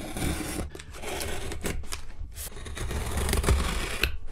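Packing tape on a cardboard shipping box being slit with a small hand tool and pulled off: a continuous rough noise broken by several sharp clicks.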